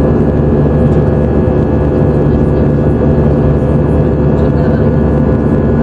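Jet engines of an Airbus A320-family airliner heard from inside the cabin in cruise: a steady, even drone with a low hum.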